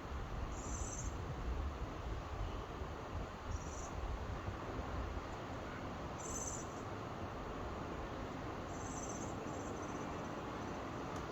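Steady wash of ocean surf with a low rumble, and four short high-pitched chirps spaced about three seconds apart.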